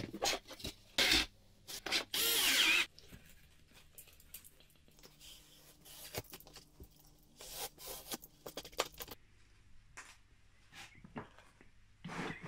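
Workbench handling noise: a few knocks and scraping rubs of plywood on the wooden bench over the first three seconds, then faint rustling and occasional light taps as a foam cushion and fake fur fabric are laid out.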